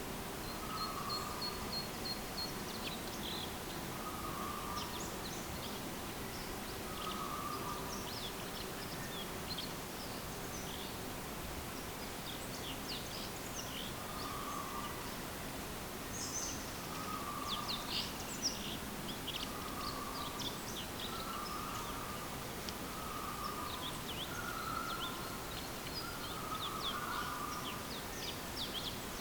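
Wild birds chirping and calling over a steady background hiss. A quick trill of even notes comes about a second in, and a lower short call repeats every two or three seconds.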